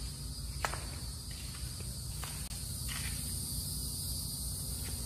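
Insects droning steadily and high-pitched from the surrounding woods, over a low rumble, with a few light footsteps ticking on the concrete floor, the clearest about half a second in.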